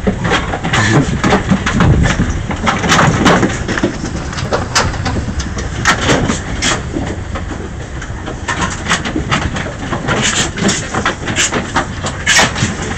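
A trailer-load of pigs grunting and squealing, with many short, sharp calls over a steady low rumble.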